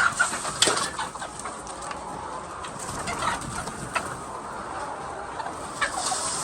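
Chickens clucking, a few short calls scattered over a steady background noise.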